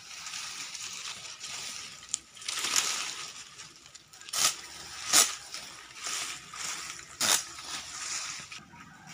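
Rustling and crackling of coconut palm fronds being handled and dragged over dry leaf litter, with three sharp cracks, about four and a half, five and seven seconds in.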